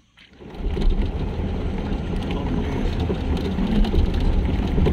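Open-back jeep driving along a dirt track: a steady low engine and tyre rumble that starts about half a second in.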